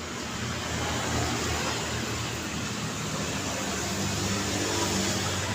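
Street traffic: passing vehicles with a steady engine hum and tyre noise, growing a little louder in the first second.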